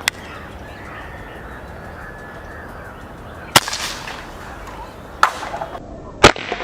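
Four sharp shots from a CO2-powered Schofield BB revolver, spaced a second or more apart; the second and fourth are the loudest.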